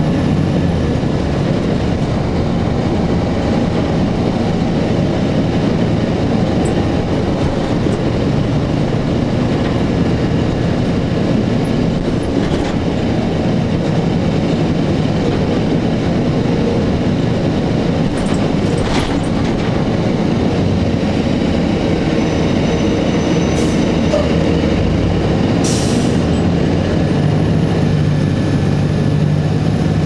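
Interior ride noise of a 2002 Blue Bird CS 40-ft transit bus cruising: its Cummins ISC diesel engine and Allison B400R automatic transmission running steadily, together with road and tyre noise. There are a few sharp clicks along the way.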